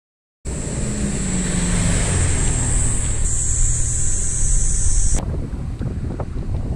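Toyota Land Cruiser Prado driving past on a street, its engine hum and tyre noise mixed with wind on the microphone, the hum dropping slightly in pitch as it pulls away. About five seconds in it cuts abruptly to the quieter steady road noise inside the moving SUV's cabin.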